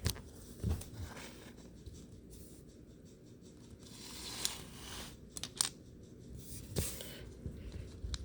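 Faint handling of LEGO pieces: scattered small plastic clicks and rustling, with a few sharper clicks in the second half.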